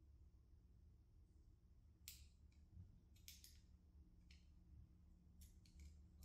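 Faint, irregular light clicks of small metal parts and a hand tool being worked on a hydraulic control valve, starting about two seconds in, over a low room hum.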